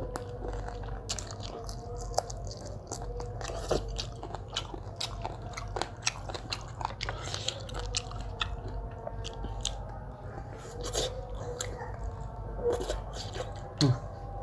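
Close-miked mukbang eating: chewing, mouth smacks and crisp bites, heard as many short irregular clicks a few times a second.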